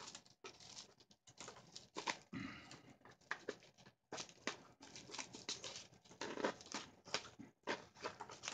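Clear plastic bag crinkling as it is handled and slit open with a knife: faint, irregular crackles with a few short pauses.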